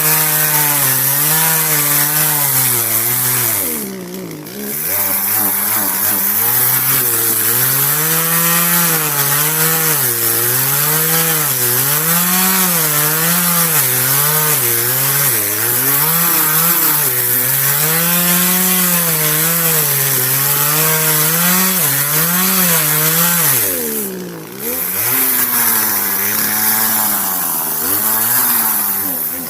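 Chainsaw cutting through a large tree, its engine pitch wavering up and down with the load and dropping off briefly twice.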